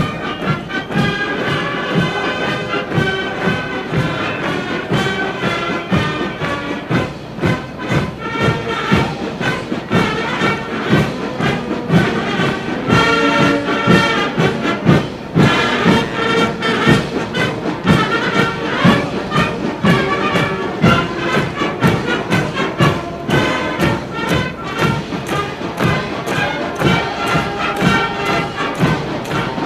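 Military brass band playing a march, held brass tones over a steady drum beat.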